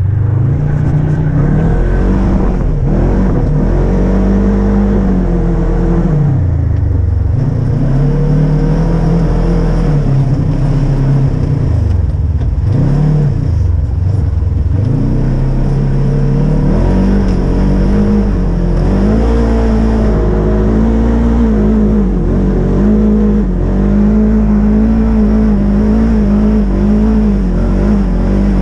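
A Polaris RZR side-by-side's engine revving up and down as the machine is driven through snow. The revs swing widely through the first half, dropping low twice, then hold higher and steadier with quick small wavers.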